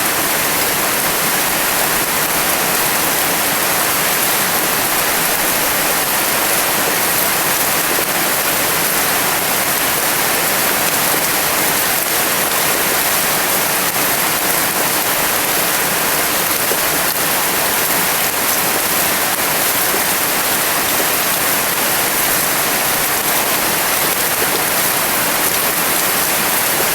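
Steady rain falling, an even hiss that holds at one level without pauses.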